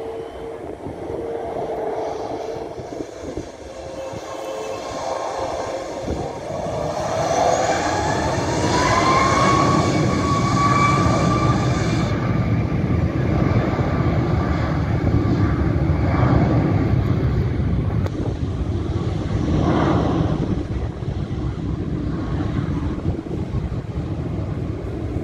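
Boeing 737 MAX 8's CFM LEAP-1B turbofan engines spooling up to takeoff thrust: a whine rising in pitch from about seven seconds in as the level climbs, then steady, loud jet noise as the airliner accelerates down the runway.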